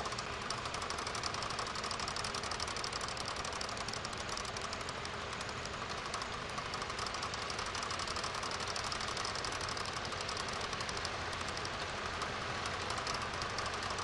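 Tractor engine running steadily under load while it pulls a plough through stubble.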